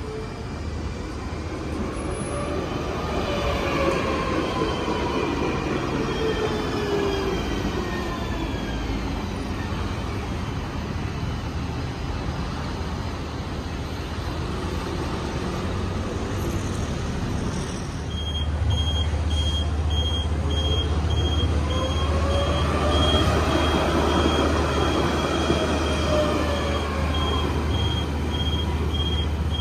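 Kaohsiung light rail tram's electric drive whining, the pitch falling as it pulls into the station. Later a tram whines past again, its pitch rising then falling. A high beeping repeats about twice a second from about 18 seconds in, over a low hum.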